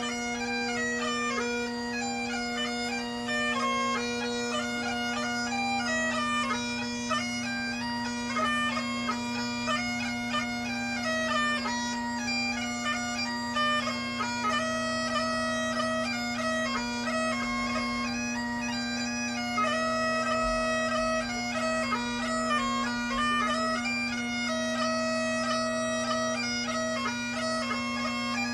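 Great Highland bagpipe playing a dance tune over its steady drones, the chanter melody moving quickly from note to note above the unbroken drone.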